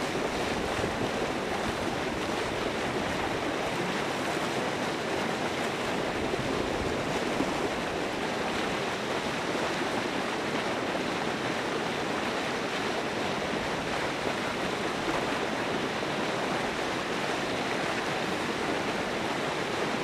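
Steady rushing splash of water churning at the open edge of the pond, an even noise with no breaks.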